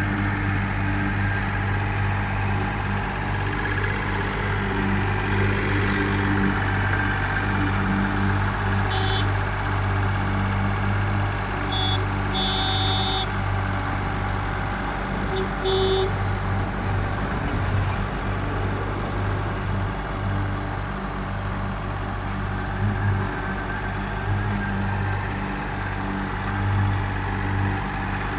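Diesel engines of a slipform concrete kerb machine and a transit mixer truck running steadily while the machine extrudes a concrete road divider. A few short high-pitched beeps sound around the middle.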